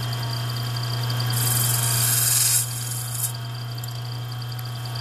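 Lathe motor running with a steady hum while a 60-degree chime tool is pushed into the spinning horn cup, scraping a groove into its bottom; the scraping hiss is loudest from about one to two and a half seconds in.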